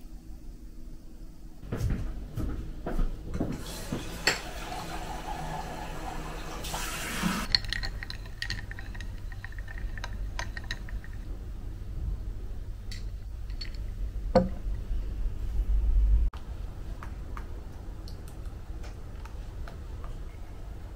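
Water running from a tap for about four seconds, amid scattered clinks and knocks of dishes being handled.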